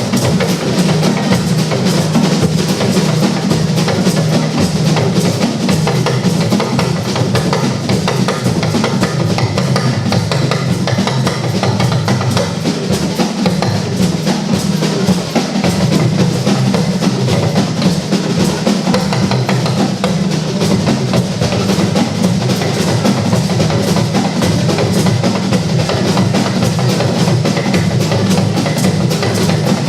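Music dominated by drums and percussion, with a fast, steady beat.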